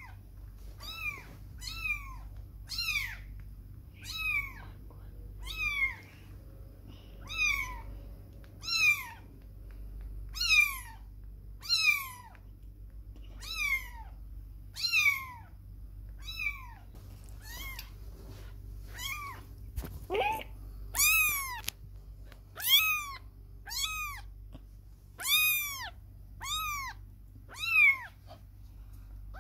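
Young kittens meowing over and over, short high-pitched calls about one or two a second, louder in the last third. These are the cries of kittens kept apart from their mother for the first time.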